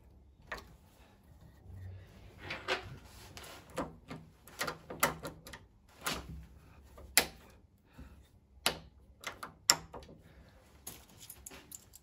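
Irregular sharp clicks and knocks from a screwdriver and a Yale night latch being handled on a door, a dozen or so, the loudest in the second half.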